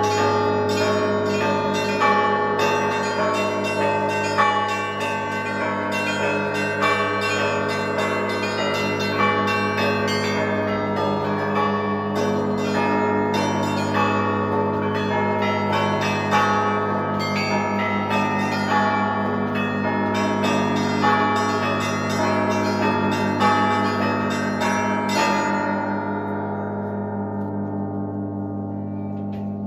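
Orthodox monastery bells ringing: small bells struck rapidly in patterns over the steady hum of larger bells. The striking stops about 25 seconds in, leaving the bells humming as they die away.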